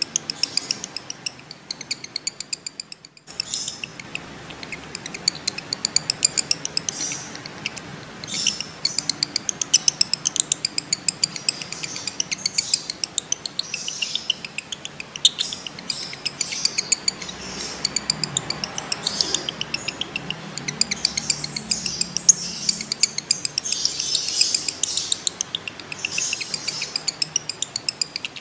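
Male lovebird giving its long chattering trill (ngekek): a fast run of sharp, high chirps, several a second, breaking off briefly about three seconds in and then running on. It is the excited call of a male in breeding condition.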